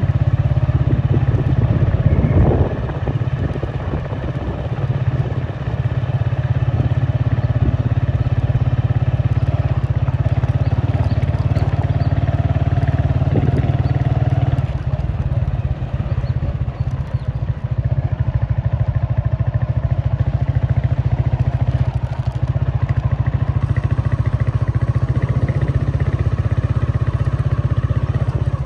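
Steady vehicle noise: a continuous low rumble of engine and road noise, with some clatter and a few brief louder passages.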